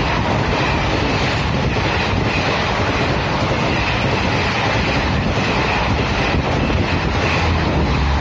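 Indian Railways express train running through a station at speed: a loud, steady rush of coaches and wheels on the rails, with wind buffeting the microphone.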